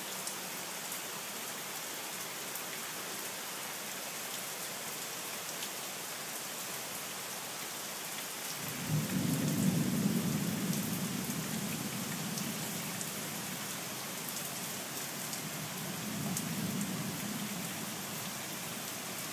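Steady rain falling on a wooden deck and garden plants. About nine seconds in, a low rumble of thunder starts suddenly and dies away over several seconds, and a second, weaker rumble comes a few seconds before the end.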